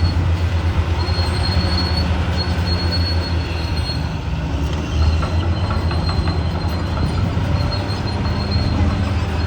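Caterpillar D6R XL bulldozer running with a steady low diesel drone, and a thin high squeal coming and going over it.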